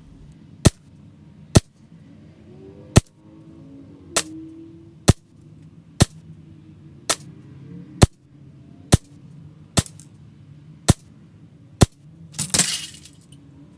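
KJ Works MK2 CO2 airsoft pistol, non-blowback and double action, firing a magazine: twelve sharp shots about one a second. Near the end, a brief, louder rush of noise.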